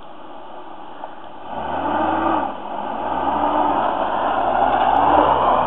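1991 Isuzu Amigo's engine revving hard off-road in two surges, each rising and then falling in pitch, after a low steady running for the first second or so; it grows louder toward the end.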